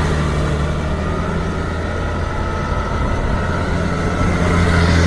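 Engine sound effect of a heavy vehicle running steadily: a low, even drone with no change in speed.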